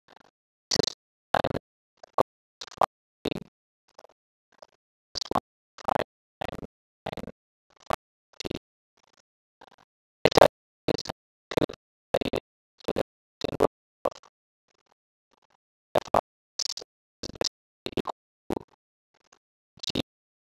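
Pen or stylus strokes on a writing surface as equations are handwritten: a quick, irregular string of short scratches and taps, with a pause of about a second and a half midway.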